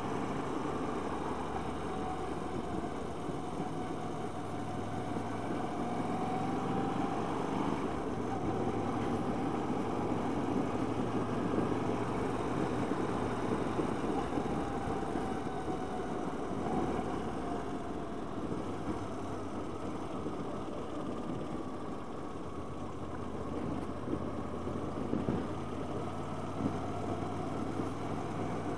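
Motorcycle engine running steadily while riding at low speed, its pitch drifting gently up and down.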